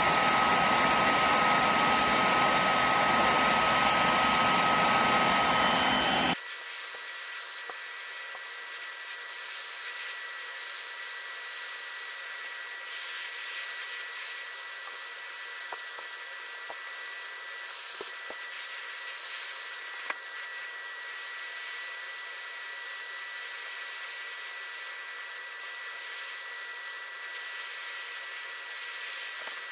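Heat gun running steadily on high. About six seconds in the sound cuts off abruptly, leaving a fainter, steady hiss.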